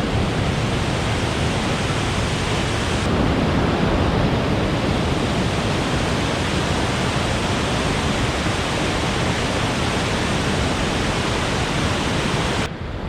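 Willow Falls' water rushing in a loud, steady roar. Near the end the sound drops off suddenly in its upper range.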